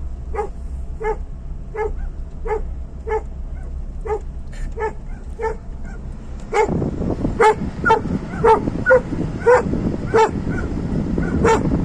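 Hunting dog barking steadily and excitedly, about two barks a second, from a moving car. About halfway in, loud wind and road rumble join the barking, and the barks grow louder.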